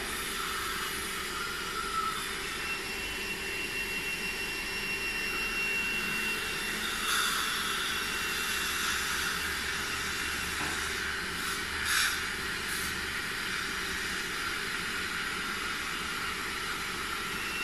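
Dental suction hissing steadily as it draws air from the patient's mouth, with short louder slurps about seven and twelve seconds in. A faint high steady tone sounds for a few seconds near the start.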